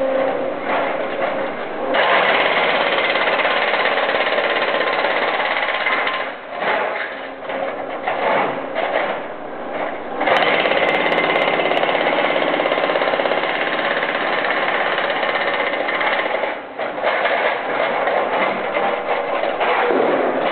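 Hydraulic breaker on a Brokk remote-controlled demolition machine hammering a concrete floor, in long loud bursts from about two seconds in and again from about ten seconds in, with quieter, choppier stretches of the machine between.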